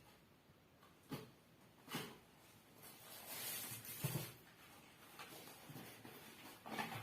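Faint handling sounds: a few soft knocks and a stretch of rustling as boxed firecrackers and their packaging are moved about.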